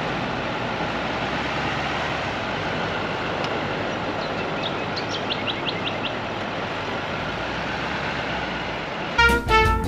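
Pickup truck engine running as it tows a caravan slowly over soft sand, under a steady rushing background noise. A bird gives a quick run of about six short chirps about five seconds in, and swing music starts near the end.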